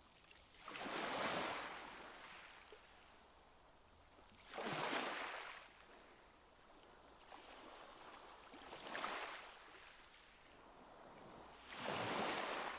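Water in a sea otter pool washing and lapping in soft swells, each about a second long and coming about every four seconds.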